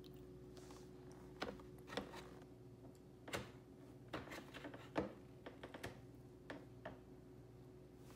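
A baby chewing peanut butter toast: irregular soft wet mouth smacks and clicks, about a dozen, over a faint steady hum.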